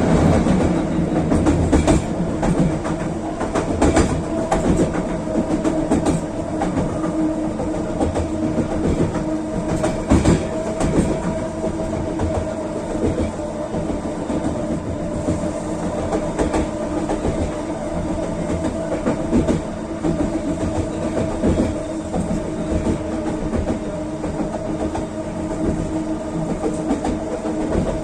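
SkyTrain metro train (linear-induction-motor driven) running along the track: a steady rumble with two held motor tones and irregular clicks of the wheels over rail joints, a little louder in the first couple of seconds.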